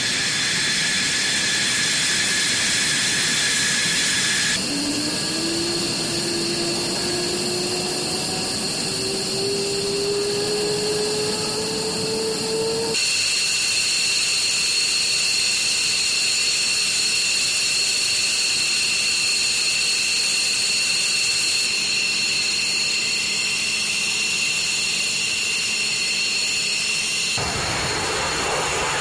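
F-15E Strike Eagle jet engines in several cut-together clips: a high turbine whine over hiss, then a whine rising slowly in pitch, then a steady high whine. Near the end it changes suddenly to a broad rush of jet noise as a jet rolls for takeoff.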